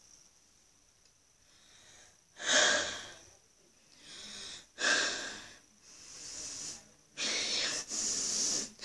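A boy breathing heavily and deliberately through his mouth, starting about two and a half seconds in: about five loud huffs in and out, alternating stronger and softer, ending in a longer blow through pursed lips.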